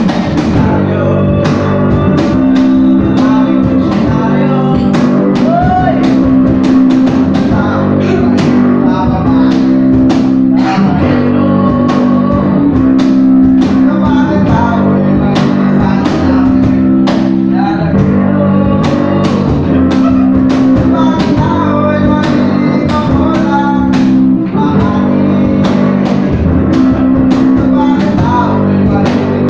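A band rehearsing a song: a guitar strummed in chords under several voices singing together.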